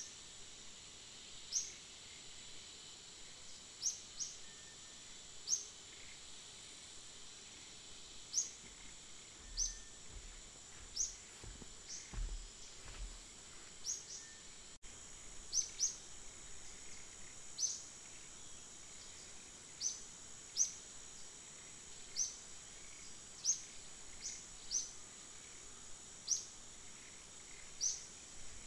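Outdoor ambience: a steady high insect drone, over which a small bird repeats a short, high, rising chirp every second or two.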